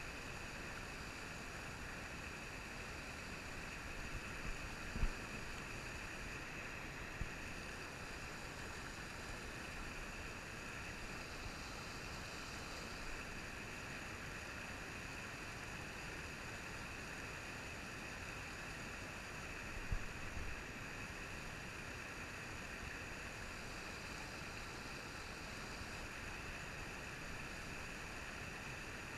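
Steady rushing of water through a shallow, rocky trout-stream riffle. A couple of brief low thumps stand out, about five seconds in and again near the middle.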